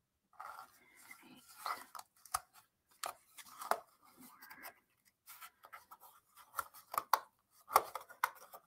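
Small pieces being pressed out of a thin wooden 3D-puzzle sheet: light scraping and rustling of the sheet in the hands, broken by a series of short sharp snaps, the loudest near the end.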